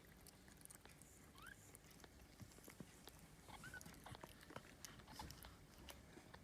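Faint wet clicking and licking from a mother cat tending her newborn kittens in a cardboard box, with two brief high squeaks from a kitten.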